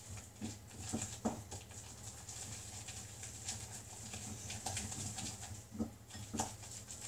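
Wooden spoon stirring a stiff chocolate brownie paste in a glass bowl, giving irregular soft knocks and scrapes against the bowl, with a low steady hum underneath.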